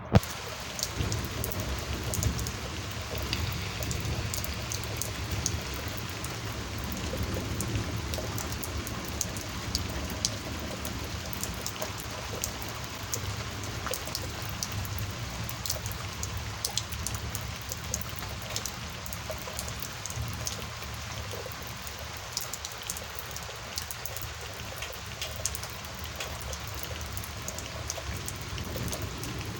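Steady rain during a thunderstorm, with many individual drops ticking sharply on a nearby surface over an even wash of falling rain. A single loud click sounds right at the start.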